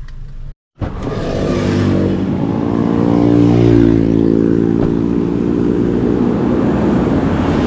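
A motor vehicle engine running close by in road traffic, its note rising to a peak about halfway through and then easing off. The sound drops out for a moment near the start.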